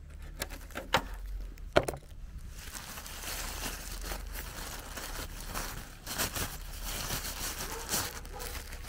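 Thin plastic bag crinkling as hands handle it and pull it open, after a few sharp plastic clicks in the first two seconds. The crinkling sets in at about two and a half seconds and runs on.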